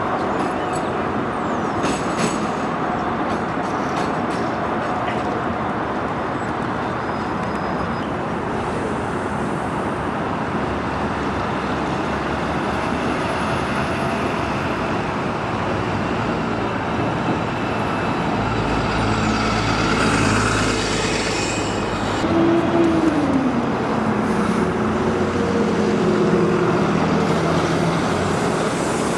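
Busy street traffic dominated by double-decker bus engines. About two-thirds through, a bus engine rumbles louder with a short hiss, then its note glides down in pitch as the bus moves off.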